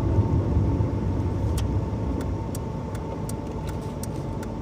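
Hyundai Eon's small three-cylinder engine running under way with road noise, heard from inside the cabin. From about a second and a half in come a string of short, sharp ticks a fraction of a second apart.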